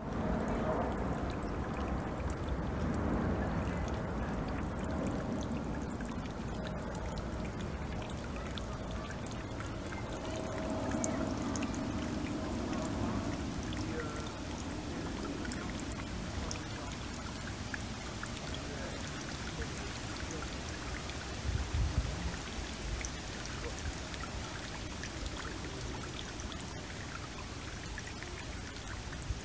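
Water trickling from a bamboo spout into a stone water basin, with small splashes and drips. A low rumble from a passing aircraft fills the first half and fades, and a dull thump comes about two-thirds of the way through.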